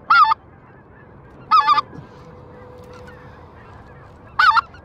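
Goose calls blown in short two-note yodels of the kind used to call specklebelly geese: three loud calls, one at the start, one about a second and a half in, and one near the end.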